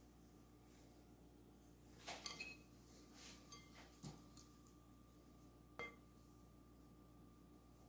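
Faint clinks and taps of kitchen dishes and utensils: a cluster about two seconds in, a knock about four seconds in and one last clink near six seconds, over a low steady hum.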